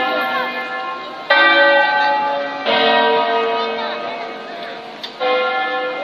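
A peal of church bells in a campanile: three bells of different pitch strike one after another, the loudest about a third of the way in. Each rings on and fades slowly into the next, with the hum of an earlier stroke still sounding at the start.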